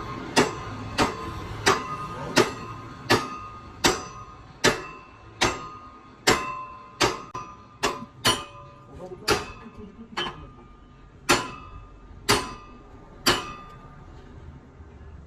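Hammer blows on ringing steel, about one every 0.7 seconds, each leaving a short metallic ring. The blows grow further apart and stop about 13 seconds in.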